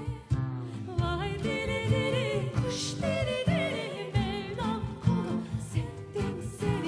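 Two women singing a Turkish folk song (türkü) with wavering, ornamented vocal lines over a live acoustic band with double bass.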